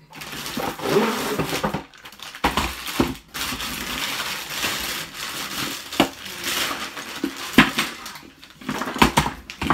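Plastic bag crinkling and rustling as a pair of trekking poles is pulled out of a cardboard box and unwrapped, with several sharp knocks and clatters in between.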